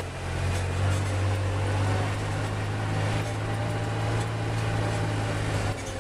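Golf cart driving, its motor a steady low hum over road and wind noise. The hum drops away shortly before the end.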